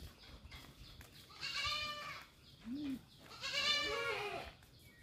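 Goats bleating: two long wavering bleats about a second and a half and three and a half seconds in, with a short low call between them. They are calling for more food, having been fed but not yet full.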